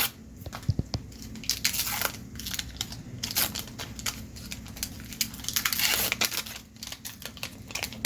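Wax-paper wrapper of a 1990 Donruss baseball card pack crinkling and tearing as it is picked open by hand, in irregular rustling bursts that are loudest about two seconds in and again around six seconds in.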